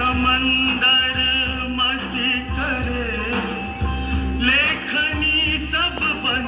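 Song for a classical Indian dance playing: a singer's voice with wavering, ornamented pitch over a steady drone.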